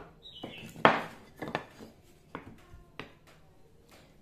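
Plastic spring-loaded corner clamps being handled and set down on a plywood workbench: a few sharp clicks and knocks, the loudest about a second in, then quiet handling.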